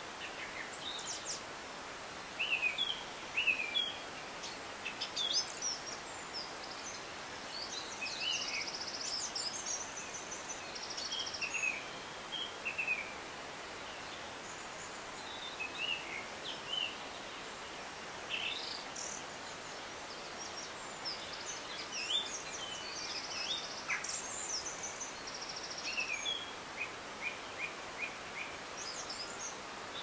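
Steady rush of a river, with small songbirds chirping and singing throughout, including a few rapid trills.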